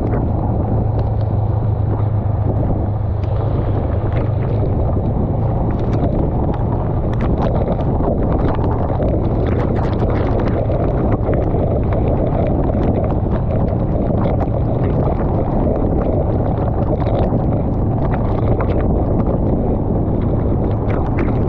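Honda Rebel 500's parallel-twin engine running steadily at cruising speed, under a constant rush of wind and tyre spray on a wet road. Scattered sharp ticks of raindrops hit the camera.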